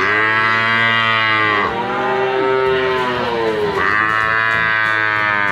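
A buffalo's loud, drawn-out lowing moo, swelling and falling about three times.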